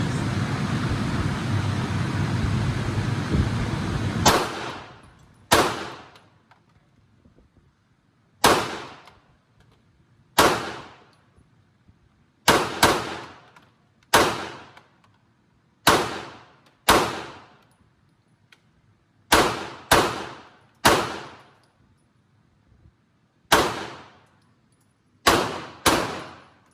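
A steady rushing noise for about four seconds cuts off, then a firearm fires about fifteen single shots at uneven intervals, sometimes two in quick succession, each sharp crack trailing off in a short echo.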